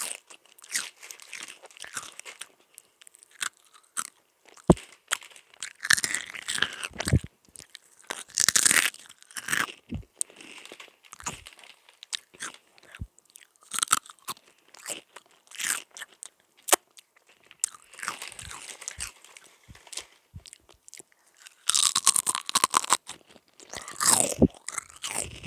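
A person chewing and biting Sunbites crisps up close to the microphone: irregular sharp crunches, some in quick clusters, with short pauses between bites.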